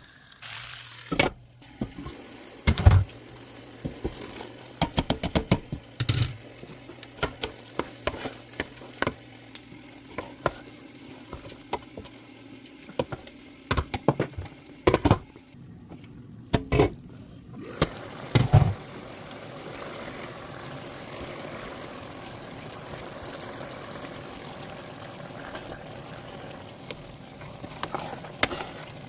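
Cooking utensils clicking and knocking against pans and dishes, then, from about two-thirds in, a steady sizzle of food frying in a pan while it is stirred.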